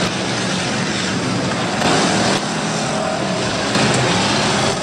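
Engines of several demolition derby cars running hard together: a loud, steady din whose pitch wavers as the drivers rev.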